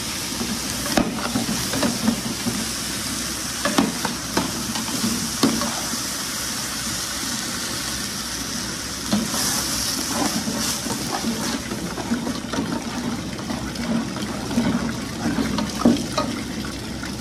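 Water pouring in a steady hissing stream into a large stainless steel stockpot of dry-roasted mung dal as the dal is washed. Now and then the metal paddle in the pot knocks against it.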